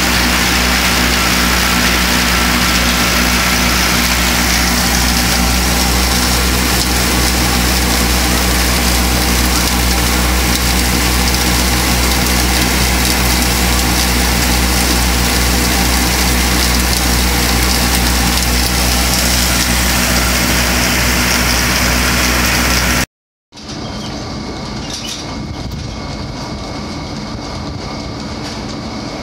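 Case 830 tractor engine running steadily under load, powering a Gehl silo blower as chopped corn silage is unloaded into it. After a brief cut, about three-quarters of the way in, comes a quieter steady hum with faint ticking from milking machines in the cow barn.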